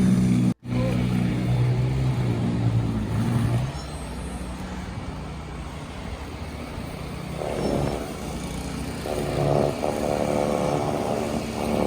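An engine running, its pitch changing about halfway through.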